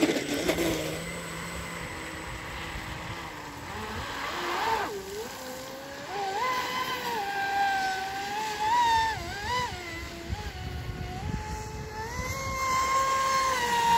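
TFL Pursuit electric RC speedboat's motor whining as the boat runs fast across a lake, the pitch rising and falling again and again with the throttle, running strong. It starts with a brief loud burst.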